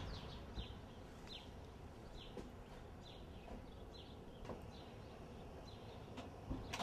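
A bird chirping over and over, faint, short high notes that fall in pitch, about two a second, over a low steady background rumble.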